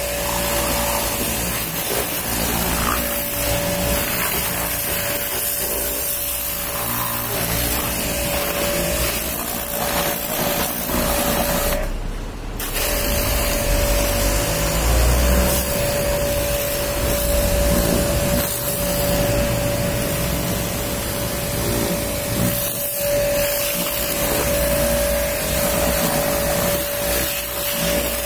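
Pressure washer running with a steady hum, its water jet hissing on the car's body panels and wheels. It breaks off briefly once, about twelve seconds in.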